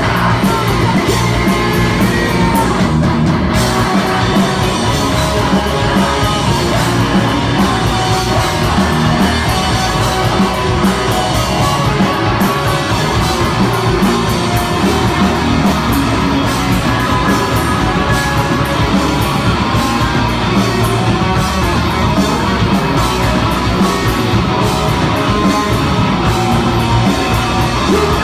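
Rock band playing live: two electric guitars, bass guitar and drums.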